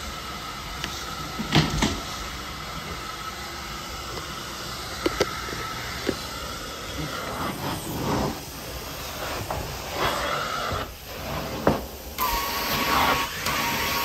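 Steady suction hiss of a carpet-cleaning extractor's vacuum hose and wand, with a few knocks as the hose is handled. About twelve seconds in the suction gets louder, with a steady whistle, as the wand's tool goes down on the carpet.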